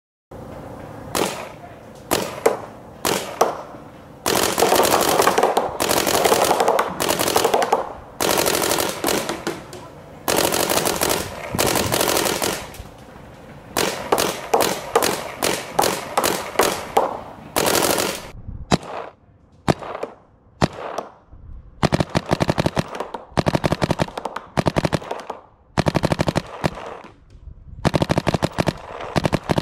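Paintball marker firing rapid strings of shots. There are long bursts for about the first two-thirds, then shorter bursts with brief pauses between them.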